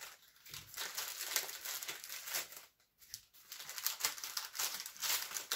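Paper candy wrapper of a Mallow Cups package crinkling in several bursts with short pauses as the chocolate cups are slid out and the empty wrapper is handled.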